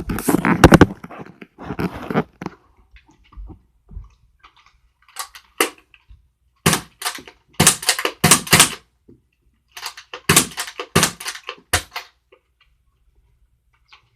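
Nerf Disruptor dart blaster being primed and fired over and over: groups of sharp plastic clacks and thunks from the slide being pulled and the spring-powered plunger snapping forward, with darts smacking the wall, spaced a second or more apart.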